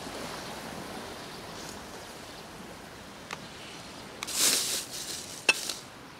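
Steady wash of sea waves and wind, with a brief swishing noise about four seconds in and a couple of sharp clicks around it.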